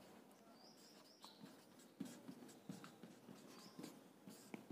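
Marker pen writing on a whiteboard: faint, short scratchy strokes with an occasional brief high squeak, coming thickest from about two seconds in.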